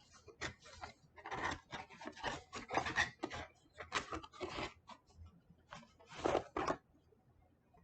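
Packaging being handled and opened by hand: an irregular run of rubbing and scraping strokes, a short lull about five seconds in, then a few more strokes.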